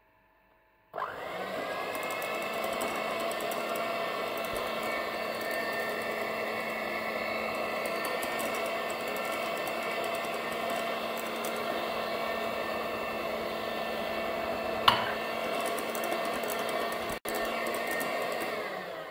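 Moulinex electric hand mixer starting about a second in and then running at a steady speed, its beaters whisking butter, sugar and egg yolks into a batter. A single sharp click comes near the end, and the sound drops out for a moment shortly after.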